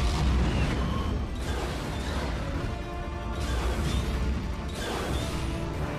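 Television action-scene soundtrack: music over a deep, steady rumble, with a loud hit at the start and surges of hissing noise about every second and a half to two seconds.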